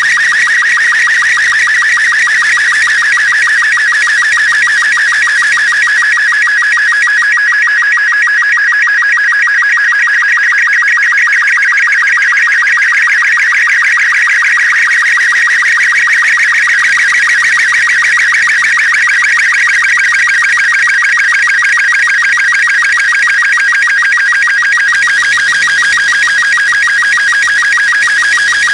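Slow-scan television (SSTV) radio signal: a loud, continuous, rapidly warbling electronic tone that carries the picture data, with no break.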